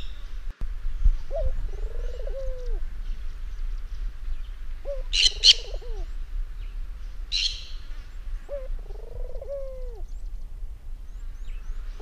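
Barbary dove (ringneck dove) cooing: a short note followed by a longer rolling coo that drops away at the end, repeated four times about every three and a half seconds. Short, sharp high chirps cut in a few times near the middle.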